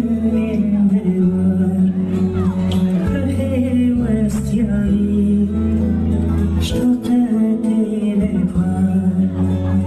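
Loud music with singing, long held notes over a steady bass.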